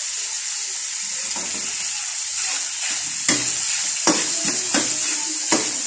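Ground pork frying in oil in a wok with a steady sizzle, stirred with a metal spatula that scrapes and clicks against the pan several times in the second half.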